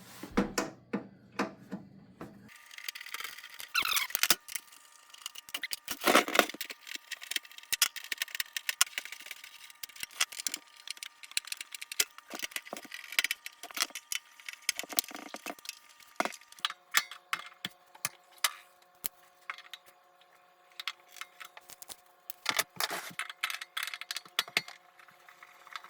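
Screwdriver backing screws out of a welder's sheet-metal case: many small, irregular clicks and ticks, with small metal parts rattling now and then.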